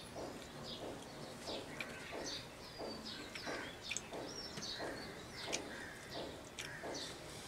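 Small birds chirping and whistling in short calls in the background, over steady mouth-chewing sounds of a man eating rice and fish curry by hand, about two chews a second.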